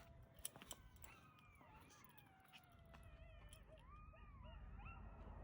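Faint animal whining: a string of drawn-out calls that glide up and down in pitch. A couple of light clicks come about half a second in.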